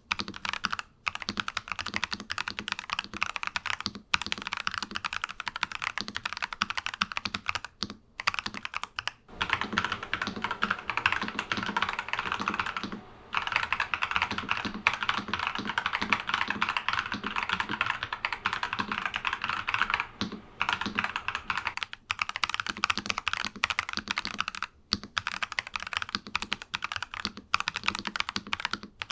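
NuPhy Halo 96 mechanical keyboard with Akko Crystal Silver switches being typed on, a rapid, continuous run of keystrokes broken by a few short pauses.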